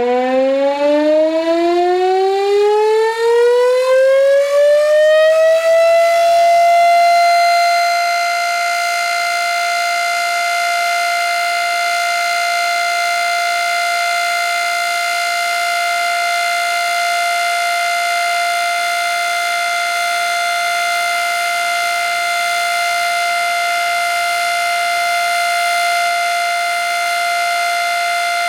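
Gryphon BS 2048 electric siren winding up, its pitch rising for about six seconds and then holding a steady tone: a steady alert signal.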